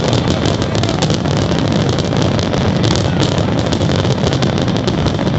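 Fireworks crackling densely over a steady low rumble.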